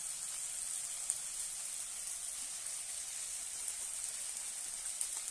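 Onion-tomato masala with spice powder sizzling in hot oil in a metal wok: a steady hiss, with a couple of sharp pops of spattering oil about a second in and near the end.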